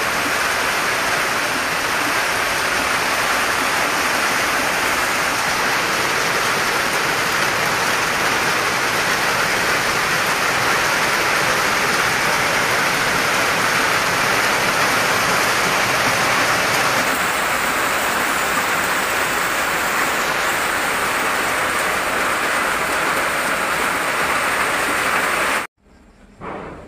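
Heavy rain pouring steadily, with water running off a roof edge. It cuts off suddenly near the end.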